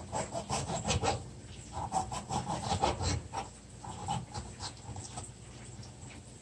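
Kitchen knife slicing a yellow bell pepper into rings on a plastic cutting board: a run of quick cuts and taps of the blade on the board, thinning out near the end. A short wavering whine comes in between the cuts, about two seconds in.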